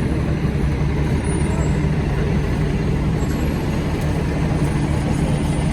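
Large vehicle engine idling: a steady low rumble with a constant hum.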